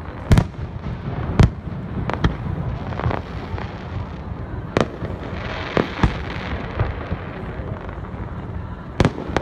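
Aerial fireworks shells bursting: about eight sharp bangs at irregular intervals, the loudest two in the first second and a half, over a continuous background of more distant rumbling.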